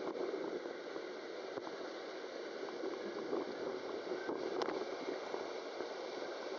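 Water rushing along a water slide tube under a sliding rider: a steady rushing hiss.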